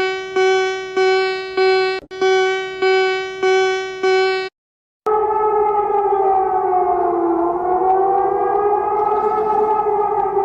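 Emergency alert tones. A run of evenly repeated beeps on one pitch, a little under two a second, each starting sharply and fading, stops about four and a half seconds in. After a short gap, a long continuous siren tone slowly wavers up and down in pitch.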